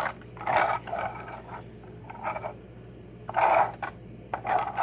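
Plastic toy pickup truck pushed back and forth by hand, its wheels rolling and scraping on carpet in about five short swishes.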